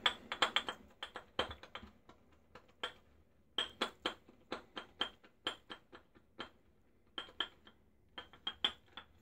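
Badger shaving brush clinking against the rim and sides of a small soap cup while being loaded on Williams mug soap. The sharp, ringing clinks come a few per second, with short pauses between runs.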